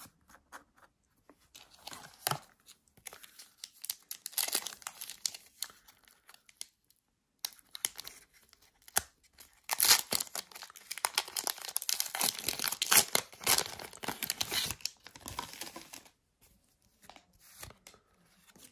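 Foil wrapper of a Pokémon TCG booster pack crinkling in the hands and being torn open: a run of crackling tears that comes and goes, loudest in the middle, with a short pause about seven seconds in.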